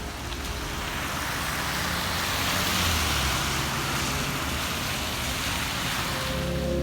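Tyres hissing on a wet, slushy road as a car passes, the hiss swelling to its loudest about halfway through and then easing off.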